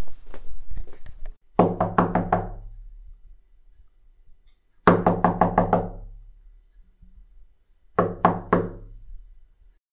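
Knocking on a wooden door: three quick rounds of about five raps each, a few seconds apart, each round ringing briefly as it dies away.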